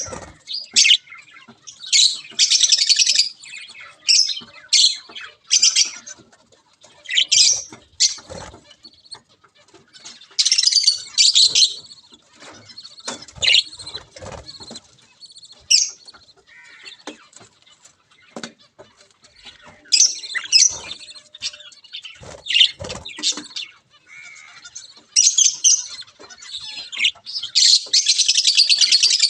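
Budgerigar chicks' raspy, buzzing begging calls in repeated bursts while the mother budgie feeds them, the longest burst near the end. A few soft low bumps come in between.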